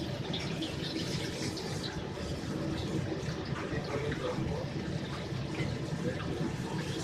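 Lit gas burners of a commercial wok range making a steady rushing noise.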